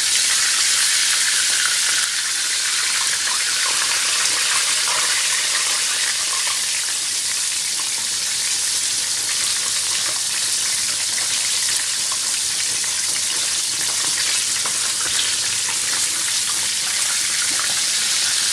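Floured, custard-soaked bread slices (torrijas) frying in hot oil in a frying pan: a steady, dense sizzle, slightly loudest in the first couple of seconds.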